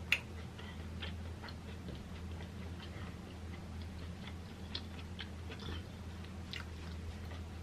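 Close-miked chewing with the mouth closed: soft, irregular wet mouth clicks, with one sharper click just after the start, over a steady low hum.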